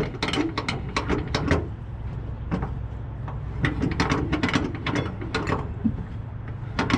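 Rapid ratcheting clicks from a flatbed's cargo-strap winch mechanism as the tie-down straps are worked off the load, in quick runs over a steady low hum.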